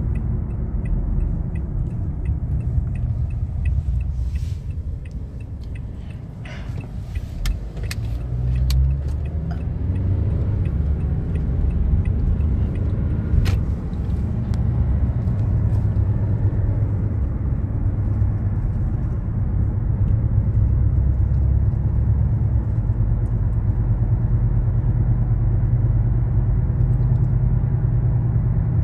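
Road and engine noise inside a moving car's cabin: a steady low rumble that dips a few seconds in, then builds back and holds steady, with a few sharp clicks in the first half.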